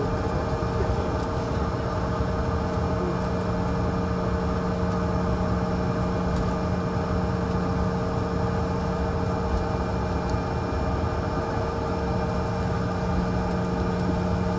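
Cabin noise of a Bombardier CRJ1000 taxiing, heard from a seat over the wing: its rear-mounted General Electric CF34 turbofans at idle give a steady hum of several even tones over a low rumble.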